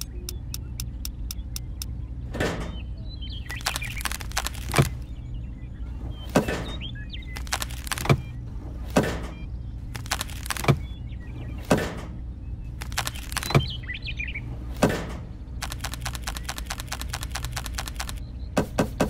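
A steady low hum with a series of sharp knocks, roughly one a second. Near the end comes a fast run of clicks, several a second. Faint short chirps are heard in between.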